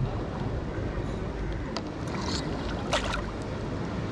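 Double-bladed paddle strokes on a sit-on-top kayak, the blades dipping and splashing in calm water over a steady wash of water and wind noise, with a few short splashes in the second half.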